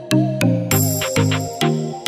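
Electronic background music with a steady beat, about two strokes a second.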